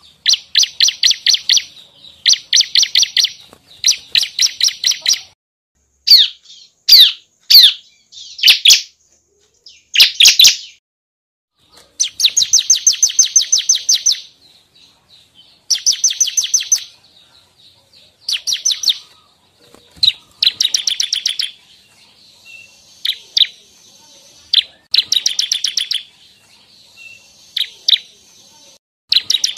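Bar-winged prinia (ciblek) singing: bursts of rapid, high, evenly repeated notes, each burst a second or two long with short pauses between, and a few quick sweeping notes in between.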